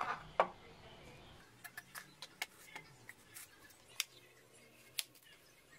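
Kitchen knife cutting a yellow watermelon on a plastic cutting board: crisp cuts through the rind and sharp taps of the blade against the board, two loud ones at the start and several lighter ones after.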